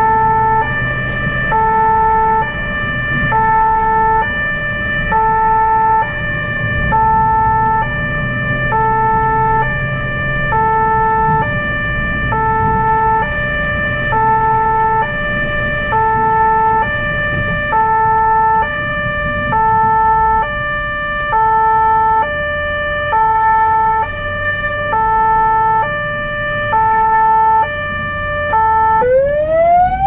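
Emergency-vehicle siren on the blood-transport car sounding a two-tone hi-lo pattern, switching between the two tones about once a second, over low engine and road noise. About a second before the end it changes to a rising wail.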